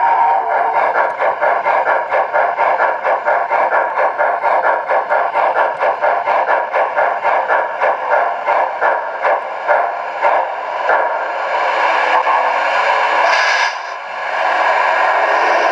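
O-gauge model steam locomotive's onboard sound system chuffing in a fast, even rhythm that slows and dies away as the train comes to a stop, then settling into a steady idle with a short burst of steam hiss near the end.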